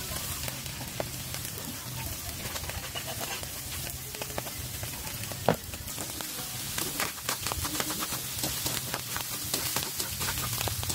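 Ground pork and diced meat sizzling in a wok, with a metal spatula clicking and scraping against the pan as it is stirred, the clicks coming thick and fast from about halfway on. A single sharp knock about five and a half seconds in.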